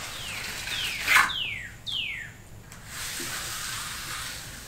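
Steel hand trowel swishing and scraping over a freshly poured wet concrete slab during finishing, with a sharp click about a second in. A bird gives four whistles in the first two seconds, each falling in pitch.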